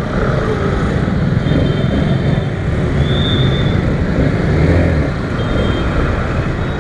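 Single-cylinder, air-cooled 149 cc four-stroke engine of an NK 150 dirt bike running at low speed in stop-and-go traffic, with the rumble of the surrounding vehicles. Three short high beeps sound from nearby traffic, about a second and a half, three seconds, and five and a half seconds in.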